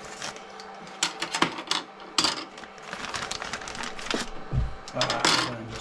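Hard plastic boat-stand pieces clicking and clattering as they are handled, with short crinkles of a clear plastic bag a little after two seconds and near the end.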